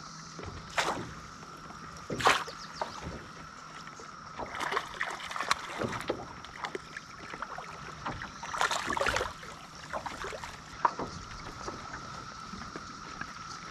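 Water splashing beside a kayak as a hooked catfish is reeled to the side and lifted out by hand: two sharp splashes about one and two seconds in, a rougher stretch around five seconds and a longer splash around nine seconds, over a faint steady high whine.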